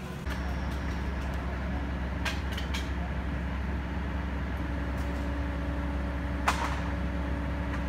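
A fire engine's diesel engine running steadily, a low even drone with fixed tones. Three short sharp clicks come a little past two seconds in, and a louder single knock about six and a half seconds in.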